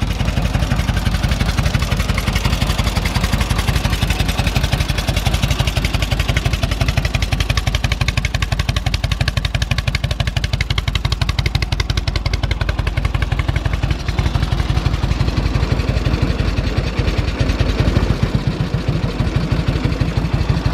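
1946 Indian Chief's flathead V-twin idling low and steady, fully warmed up with the timing retarded and the choke off, running with a slow beat like an old tractor.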